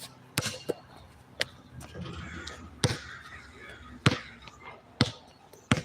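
A basketball bouncing on a hard court: about seven sharp, irregularly spaced bounces.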